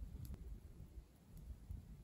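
Wood campfire burning faintly: a low rumble with a single sharp crackle near the start.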